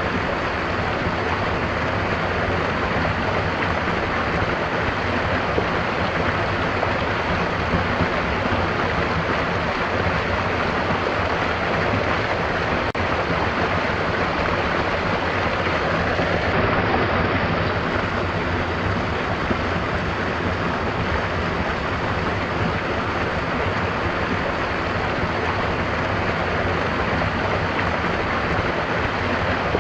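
A stream of water flowing and rushing steadily, an even wash of water noise.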